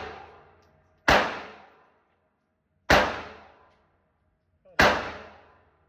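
Three single pistol shots from a small Smith & Wesson .380 semi-automatic, fired slowly, a little under two seconds apart, each report ringing out for most of a second in the range.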